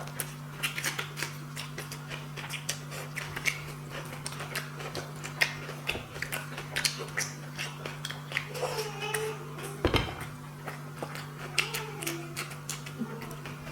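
Eating sounds of rice and curry: many small irregular chewing and mouth clicks over a steady low hum.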